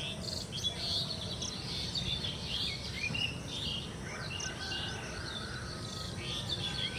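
Several birds chirping, many short calls overlapping, over a steady low background noise; a thin held note joins in about halfway through.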